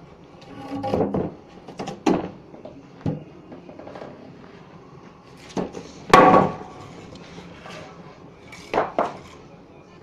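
Wooden beams being handled and set down on a concrete floor: a series of separate wooden knocks and bumps, the loudest about six seconds in, with a quick double knock near the end.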